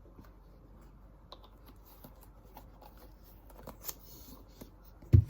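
Light scattered clicks and taps of slime supplies being handled on a table, with one low thump just before the end.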